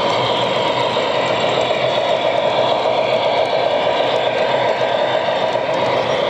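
O-gauge model trains running on a layout: a steady, even running noise of motors and wheels on track.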